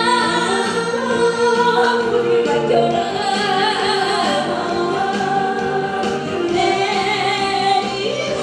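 A woman singing into a handheld microphone over backing music.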